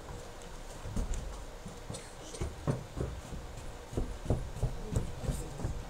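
Footsteps of a person walking close by, a string of soft, irregular thuds, with faint rustling of paper pages.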